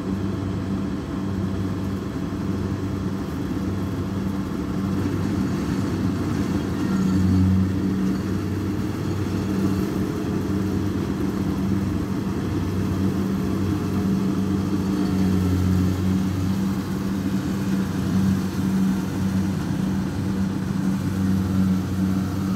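Kubota DC60 combine harvester running steadily as it harvests rice, its diesel engine a continuous low drone that swells briefly a couple of times.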